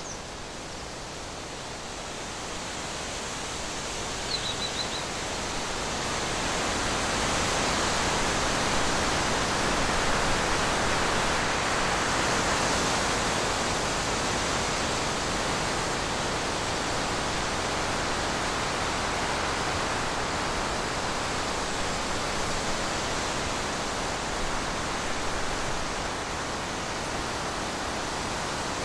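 Steady outdoor hiss with no distinct source, growing louder over the first several seconds and then holding level. A short high chirp sounds about four seconds in.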